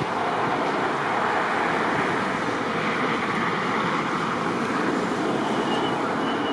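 Steady rushing road and wind noise of a car driving through a snowstorm, heard from inside the cabin.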